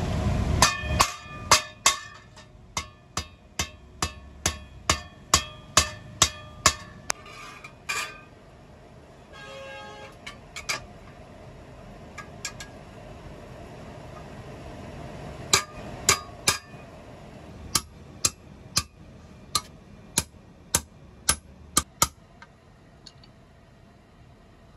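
Hand hammer striking a steel spade blade on an anvil block: sharp, ringing metal blows about two a second, in three runs with pauses between.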